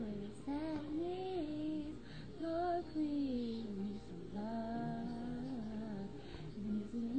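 A young woman singing solo, her voice alone with no accompaniment, in long held notes that slide and bend between pitches, with short breaths between phrases.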